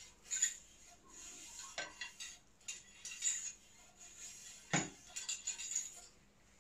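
Cleaning rod being worked through a Derya CRX400 pump-action shotgun barrel: metal scraping and clinking, with two sharper knocks about two seconds and five seconds in.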